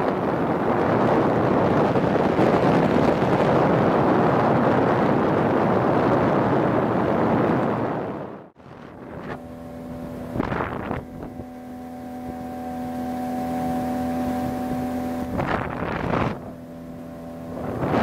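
Motorboat engine running steadily while the boat travels, with wind buffeting the microphone. About halfway the wind noise cuts out abruptly, leaving the engine's steady hum, broken by two brief gusts.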